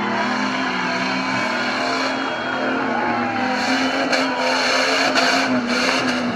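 Off-road 4x4 SUV's engine running hard under load as it drives through deep mud, with a steady drone and a few short noisy surges in the second half.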